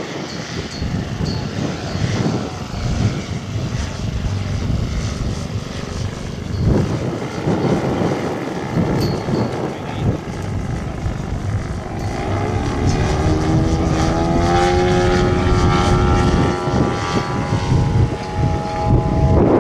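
Engine and propeller of a radio-controlled Piper L-4 Cub scale model plane running in flight, with rough wind noise on the microphone. About two-thirds of the way through, the engine note grows louder and clearer, rising slightly in pitch and then holding steady as the plane passes close.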